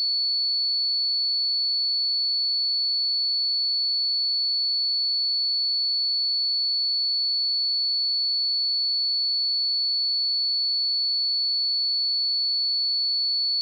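A steady, high-pitched 4435 Hz sine-wave test tone, a pure single pitch held unchanged at constant level.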